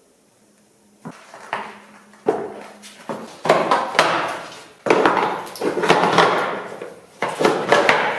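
Metal tools and parts being handled, a string of irregular knocks and clinks with scraping and ringing between them. They start about a second in.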